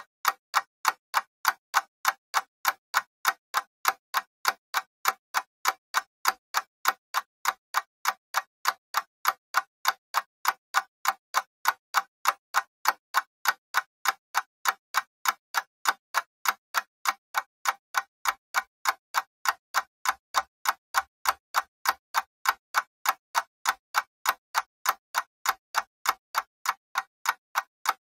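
Mechanical clock ticking steadily: even, sharp ticks several times a second, keeping an unchanging rhythm.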